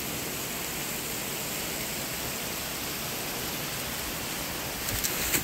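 Steady rushing of the Niagara River's Whirlpool Rapids, an even wash of whitewater noise. A few sharp knocks sound in the last half second.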